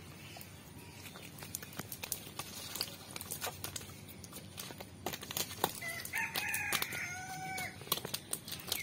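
Wet slaps and clicks as fish flap in a cast net on muddy ground, and a rooster crowing once, one long call, about six seconds in.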